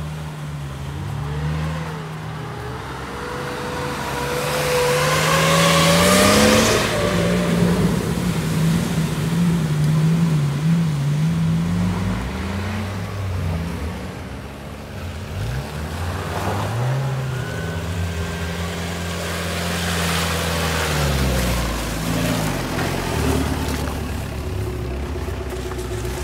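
Off-road SUV engines revving up and down as they labour through deep mud, with a loud hissing surge of tyres churning mud and water about six seconds in. Near the end an Opel Frontera drives close past through the mud.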